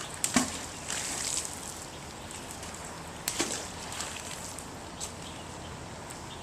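Two sharp knocks about three seconds apart, the first the loudest, with a brief scrape or rustle after the first and faint ticks, over a steady hiss of outdoor background noise.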